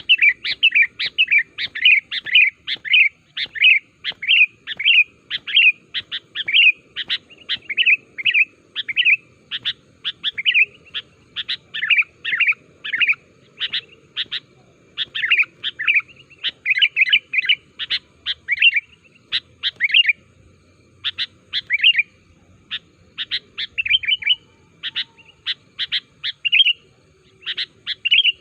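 Sooty-headed bulbul singing in a fast, lively run of short chirping notes, about two to three a second, broken by a few brief pauses.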